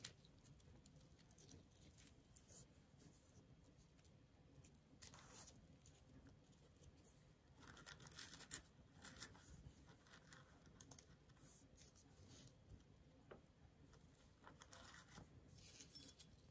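Faint, scattered crunches of a guinea pig chewing pieces of raw carrot, with near silence between them.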